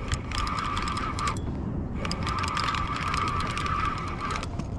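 Spinning reel being cranked as a small catfish is reeled in, its gears whirring with rapid clicking. It comes in two spells: about a second of cranking, a short pause, then about two and a half seconds more.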